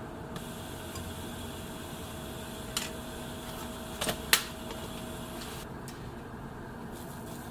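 Steady machine hum with a few short clicks, the sharpest about four and a half seconds in.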